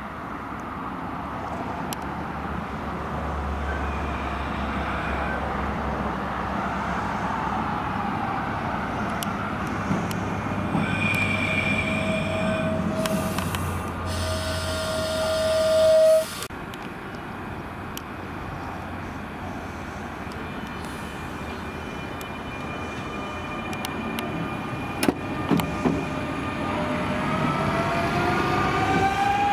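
CP series 2240 electric multiple unit running in along the platform, its wheel and rail noise growing louder. A short horn note about 11 s in is followed by a longer, louder one that cuts off suddenly about 16 s in. A few sharp clicks come near the 25 s mark, and a rising whine starts near the end.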